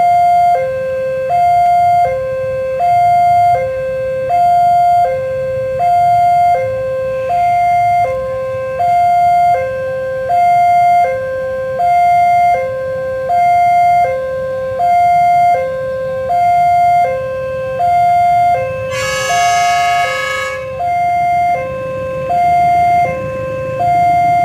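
Railway level-crossing warning alarm sounding a loud, steady two-tone hi-lo signal, one full cycle about every second and a half, warning of an approaching train. About nineteen seconds in, the approaching CC 201 diesel locomotive's horn sounds once for about a second and a half.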